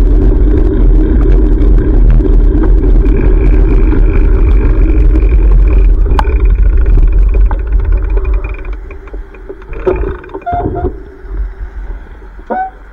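Loud wind rumble buffeting a GoPro microphone on a moving bicycle, with traffic noise under it; the rumble dies down sharply about eight seconds in. A few short high squeaks follow near the end.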